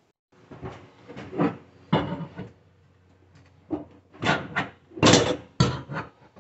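An old built-in electric coil cooktop's metal frame knocking and scraping in its countertop cutout as a pry tool is worked down behind it, a string of separate clunks and scrapes with the loudest group about five seconds in. The cooktop is still held by its clips and only shifts a little.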